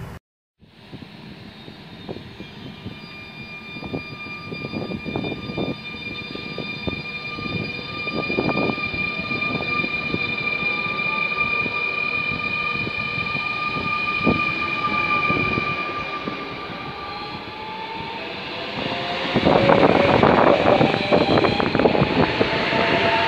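Double-deck TER electric multiple unit running on the track: a steady whine with several pitched tones from its electric traction equipment, with clicks from the wheels. From about 19 seconds in, the wheel clatter gets louder and the whine rises in pitch as the train speeds up.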